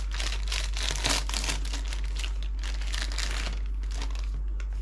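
The crinkly wrapper of a packaged ham and bacon garlic bread being torn open and handled, a busy run of crackling rustles that dies away after about three and a half seconds.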